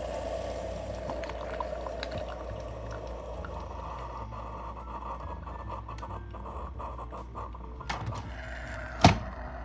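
Keurig coffee maker brewing, a thin stream of coffee pouring into a ceramic mug, the filling note rising in pitch partway through. A sharp knock comes near the end.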